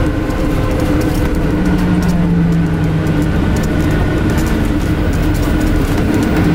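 Cabin noise inside a Scania N250UD double-decker bus under way: the air-conditioning unit hums steadily over the engine and road noise. A low steady tone comes in about a second and a half in and fades out a second or so later.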